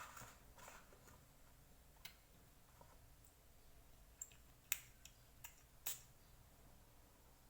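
A few faint, sharp clicks and taps spread over several seconds, the sound of a perfume bottle being handled, with two louder clicks about five to six seconds in.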